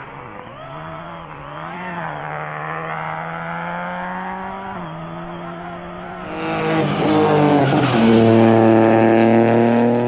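Rally car engine at high revs under throttle, its pitch climbing and dipping through gear changes with a clear drop at an upshift about five seconds in. About six seconds in it switches abruptly to a louder, fuller rally car engine held at high revs.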